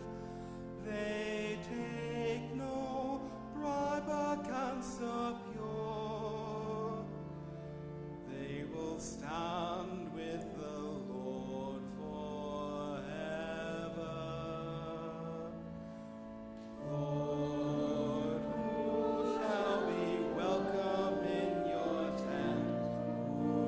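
Slow sung church music: voices with a slight waver in pitch over steady held low notes, growing louder about seventeen seconds in.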